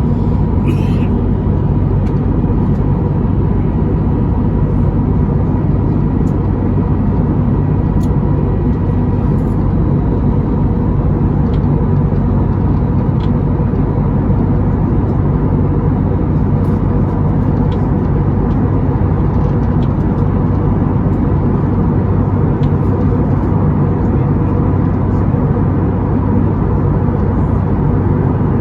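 Airbus A321neo's Pratt & Whitney geared turbofan engines running steadily, heard inside the passenger cabin as constant loud noise with a steady hum.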